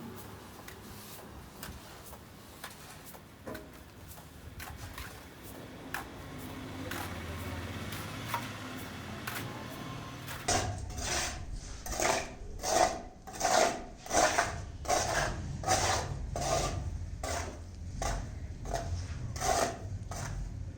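Faint scattered scrapes and clicks, then from about halfway through a run of loud rasping strokes, about two a second, like a tool being worked back and forth against a rough surface.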